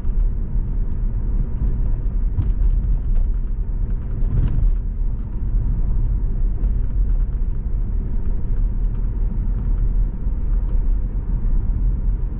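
Cabin noise of a 2004 Saab 9-5 Aero cruising steadily at 30 mph with no acceleration, with the cabin freshly sound-deadened: a steady low rumble of road and engine noise.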